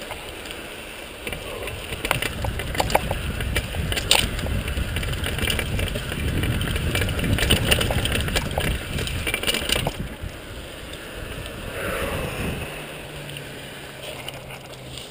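Mountain bike descending a rocky dirt trail: wind rushing over the microphone, tyres rolling over dirt and stones, and the bike rattling and clicking over bumps, loudest in the middle and easing off near the end.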